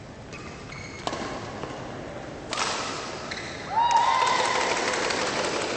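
Badminton rally in a hall: sharp racket strikes on the shuttlecock, one about a second in and a louder one about two and a half seconds in. About four seconds in the sound gets louder, a mix of noise with a short squeak-like tone, likely shoes on the court mat and onlookers.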